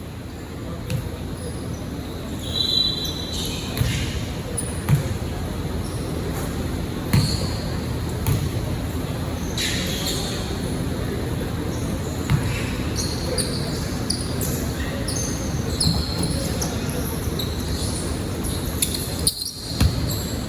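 Basketball being dribbled on an indoor court: irregular low thuds every second or few, with short high sneaker squeaks and the murmur of players' voices echoing in the hall.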